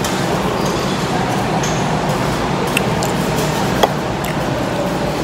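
Steady background hum and hiss, with a few light clicks of cutlery against a plate or dish around the middle.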